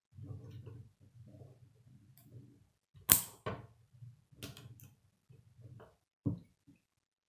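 K'nex plastic rods and connectors clicking and snapping together as a model is assembled by hand, with the sharpest snap about three seconds in and a few more after. Low knocking and rubbing of the plastic model being handled run under the clicks.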